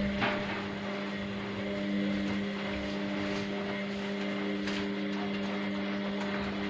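Washing machine running: a steady motor hum with a few soft knocks and swishes.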